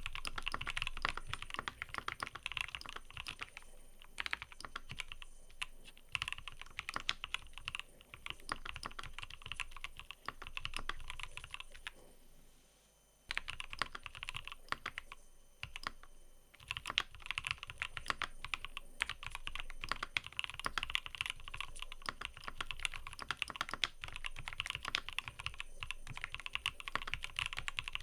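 Continuous fast typing on a mechanical keyboard: a dense patter of key clicks and clacks, with a pause of about a second and a half roughly halfway through before the typing picks up again.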